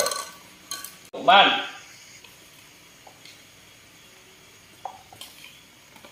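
A short cry that falls in pitch, about a second in, followed by a few faint clicks and knocks.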